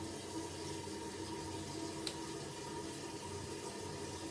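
Toilet cistern refilling: a steady hiss of water through the fill valve with a faint steady tone in it. One small click about two seconds in.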